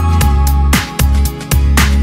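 Electronic background music with a deep, sustained bass and a steady beat of about four drum hits a second.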